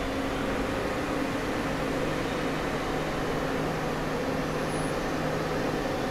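Steady mechanical hum of a Miyano BND-34S CNC turning center running, with a few steady tones that change partway through.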